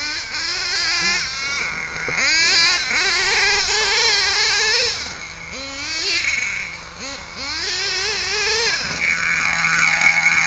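HPI Savage nitro RC monster truck's LRP Z28R Spec 3 .28 nitro engine, breathing through a three-chamber tuned exhaust, revving up and down again and again as the truck is driven. It drops back to a steady idle twice between the bursts of throttle.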